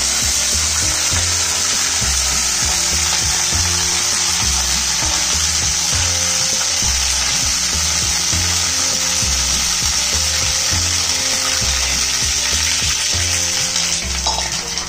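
Hot oil tempered with mustard seeds, green chillies and curry leaves sizzling and spitting loudly in a wok as water is poured slowly into it. The sizzling dies down near the end as the water fills the pan.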